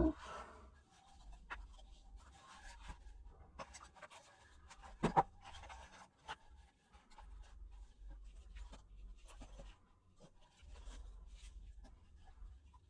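Faint scratchy rustling and small clicks of hands handling small parts, with one sharper knock about five seconds in.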